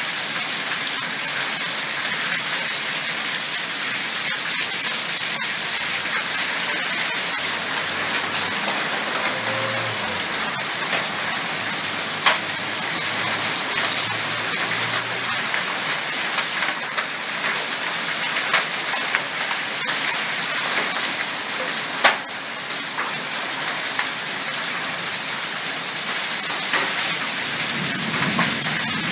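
Heavy rain pouring down during a thunderstorm: a steady, dense hiss of downpour, with a few sharp ticks of impacts now and then.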